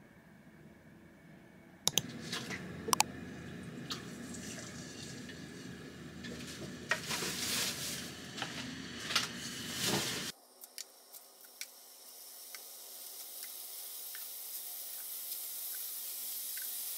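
Pork tenderloin steaks frying in oil in a pan, sizzling, with sharp clicks of tongs against the pan as the pieces are laid in. About ten seconds in it changes to a steadier high hiss of frying with small pops that grows louder near the end.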